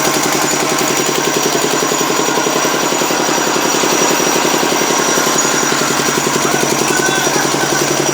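A 10 hp engine driving a 7.5 kVA single-phase generator, running steadily and loudly with a fast, even putter of firing pulses.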